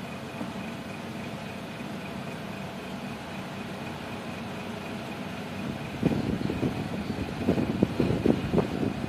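A steady low hum of background noise; from about six seconds in, a run of irregular soft knocks and rubbing, like handling noise on the work surface.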